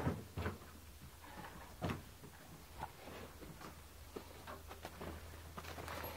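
A cow's hooves and a person's footsteps on straw-strewn dirt as the cow is led out of a shed: a few scattered knocks and thuds, the loudest at the very start and about two seconds in, with a faint steady low hum underneath.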